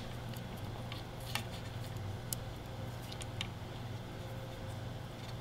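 Faint handling noises: a few light clicks and rubs as a plastic zip tie is threaded through a flyback transformer's core and the holes of a circuit board, over a steady low background hum.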